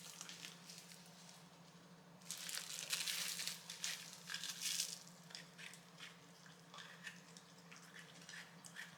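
A Shiba Inu crunching and chewing frozen cucumber. There is a dense run of crunching from about two to five seconds in, then scattered smaller crunches and clicks.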